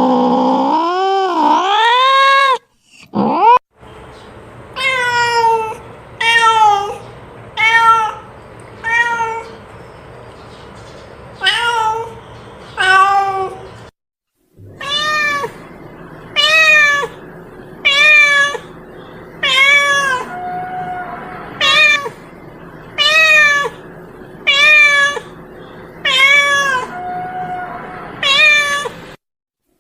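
Domestic cat meowing over and over: a long wavering yowl at the start, then short meows that rise and fall, about one every second, with a brief pause in the middle.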